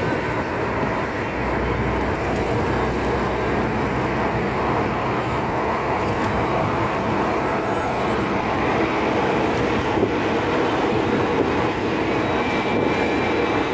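Steady rumble of a car driving along, engine and tyre noise with no break.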